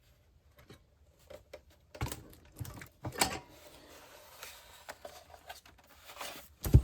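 Scattered clicks and knocks of a monitor being handled, with faint rustling between them and a louder knock near the end.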